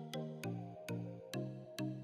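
Outro background music: a light electronic tune with evenly spaced plucked notes, about two a second, each with a sharp click.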